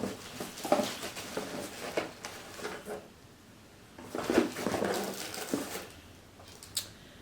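Rustling and clicking of products and packaging being handled and set down, in two spells of a few seconds each, with one sharp click near the end.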